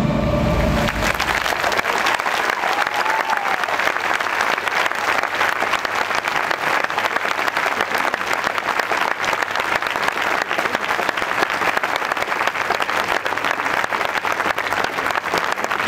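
Large audience applauding, starting as the music stops about a second in and going on steadily.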